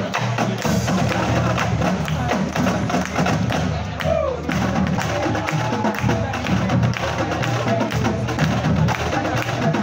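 Marching drumline playing a drum cadence: snare drums, tenor drums and bass drums with many sharp stick strikes over a low bass-drum pulse.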